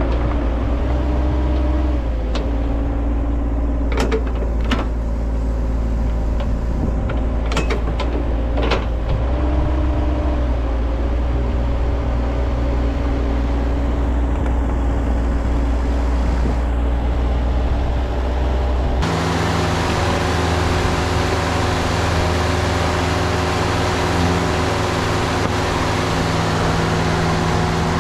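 Skid steer engine running steadily while working, with a few sharp clanks a few seconds in. The engine note changes abruptly about two-thirds of the way through.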